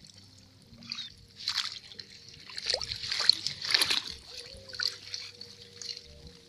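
Swamp water splashing and sloshing in several short bursts, the loudest around the middle.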